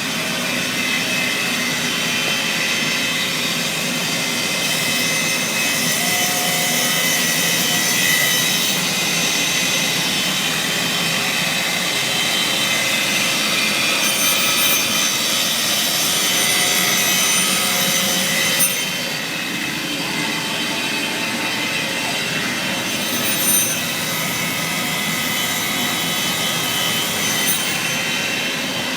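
CNC router cutting plasterboard: a steady, loud machine noise with several high whining tones over a hiss, and a couple of brief louder blips about two-thirds of the way through.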